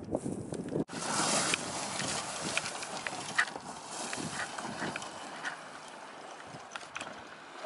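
Shingle pebbles crunching and clicking underfoot, irregular steps on a pebble beach.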